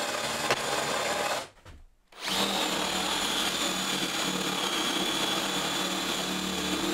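Cordless drill spinning a 25 mm Forstner bit, boring a recess partway through the board, with chips flying. Two spells of steady motor whine and cutting, broken by a short pause about a second and a half in.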